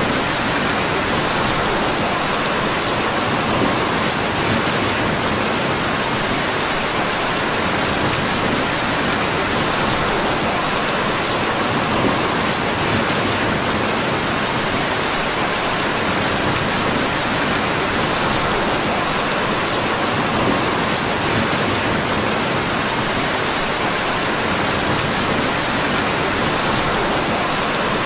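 Steady rain falling in an even, unbroken hiss.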